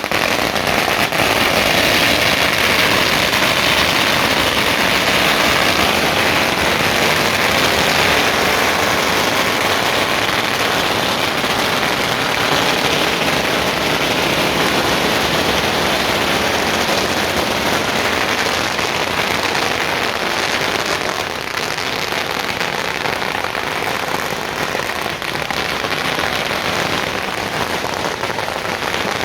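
Long strings of firecrackers going off in a very loud, dense, unbroken crackle, easing a little over the last third.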